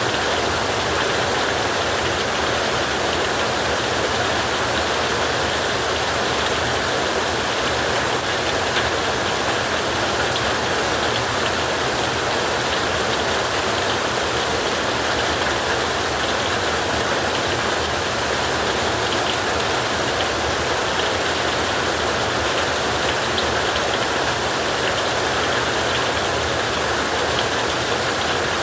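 Heavy rain drumming steadily on a tin roof, a dense, even hiss with no breaks or thunderclaps.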